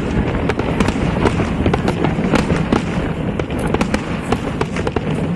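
Fireworks going off in a dense, continuous barrage: many sharp cracks a second over a steady low rumble.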